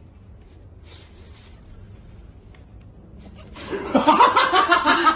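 Faint room noise, then about three and a half seconds in a person bursts into loud, rapid laughter.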